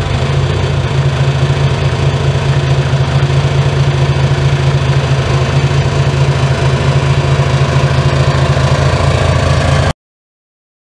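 Mercedes OM606 3.0-litre straight-six turbodiesel, on its freshly fitted and timed Dieselmeken mechanical fuel pump, idling steadily after a rev. The sound cuts off suddenly about ten seconds in.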